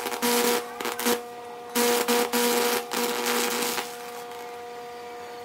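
High-voltage electricity arcing over a wet wooden board between two electrodes, burning fractal patterns into the wood: loud crackling and sizzling in two bursts with a short break between them, stopping about two-thirds of the way through. A steady electrical hum runs underneath throughout.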